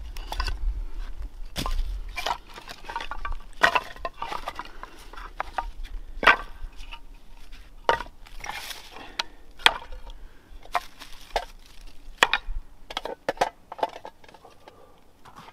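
Split dry kindling sticks clacking and knocking against each other as they are handled and laid down one by one, irregular wooden clicks with rustling between them.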